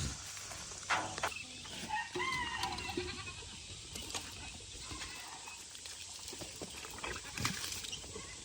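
A goat bleats once, a wavering call about a second long, about two seconds in. A few sharp knocks sound around it.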